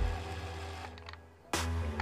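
Background music. It fades almost to quiet about a second and a half in, then comes back in with a sharp hit.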